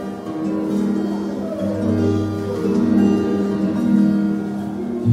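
Acoustic guitar played live, a steady run of plucked and held notes.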